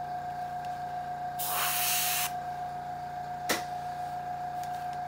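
Gravity-feed airbrush giving a short burst of spray, about a second of air hiss, as paint is laid along a masking-tape edge. A single sharp click comes a little later over a steady background hum.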